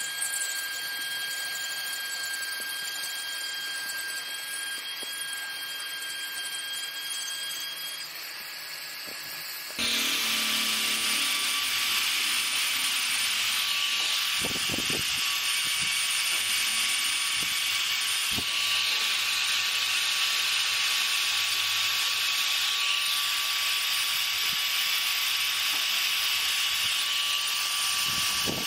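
Handheld electric rotary tool running at high speed with a steady whine, its bit grinding and carving wood. About ten seconds in it turns suddenly louder, with a harsher grinding hiss over a lower whine.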